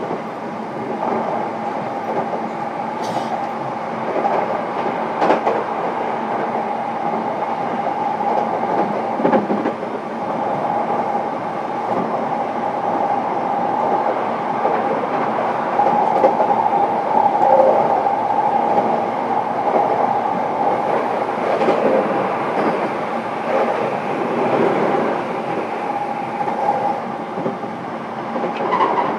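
Running noise inside the motor car MoHa E233-7434 of a JR East E233-7000 series electric train at speed: a steady hum with a held tone, and sharp clicks of the wheels over the rails every few seconds.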